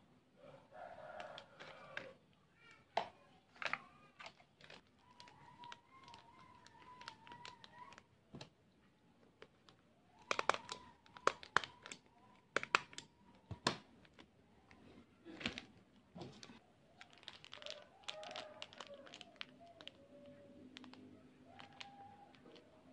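Clear plastic snack bag crinkling and rustling as spicy-sweet cassava chips are spooned in and packed, with scattered clicks and scrapes of a metal spoon against the plastic basin and bag. The clicks come thickest about halfway through.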